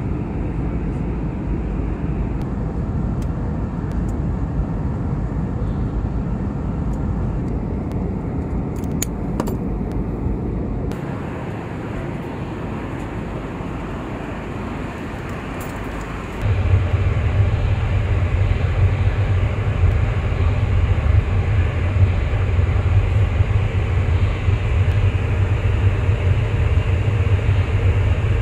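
Steady in-flight cabin noise of an Airbus A320neo: a continuous rumble of engines and airflow. About sixteen seconds in it steps up louder, with a stronger low hum, and a few light clicks come before that.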